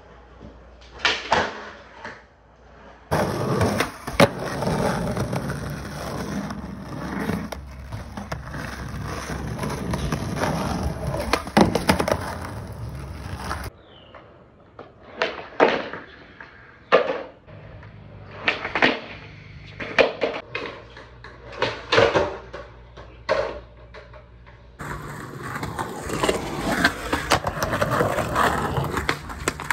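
Skateboard on concrete: sharp pops and clacks of the board snapping off the tail and slapping down as tricks are tried, about a dozen in a row through the middle. Longer stretches of hard wheels rolling come between them, one early and one starting near the end.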